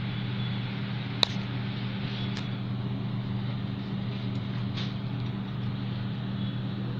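A steady low hum, with one sharp click about a second in and a few faint ticks afterwards.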